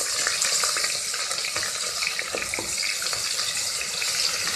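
Ginger-garlic paste and curry leaves frying in hot oil in an aluminium pressure cooker, a steady sizzling hiss. A wooden spatula stirs through it, with a few light scrapes and taps against the pot.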